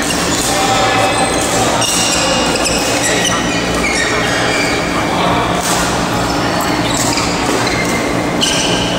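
Badminton hall during play: many short, high shoe squeaks on the court floor, a few sharp racket-on-shuttlecock hits, and background voices, over a steady low hum.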